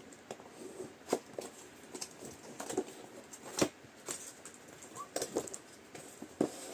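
A cardboard box being handled and opened by hand: scattered taps, clicks and light rustles, the sharpest about a second in and again around the middle.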